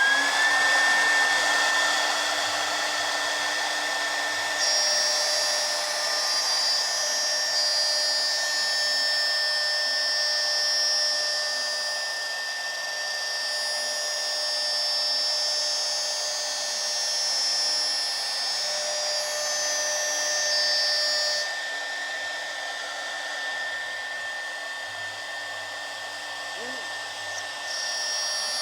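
Electric motor of a woodworking machine spinning up at the start and then running at a steady speed, with a constant high whine over a loud whooshing noise.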